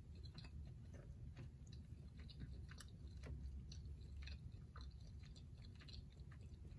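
Faint, close-up chewing of food: a scatter of small, irregular mouth clicks as a bite is worked over.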